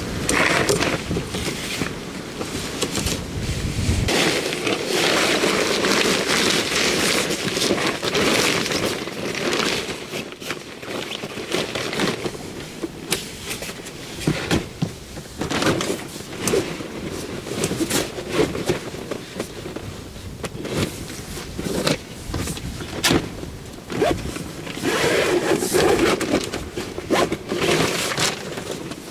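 Crinkly synthetic tent fabric rustling and scraping as a dome tent and its rainfly are handled and pulled into place, in swelling waves with scattered sharp clicks and knocks.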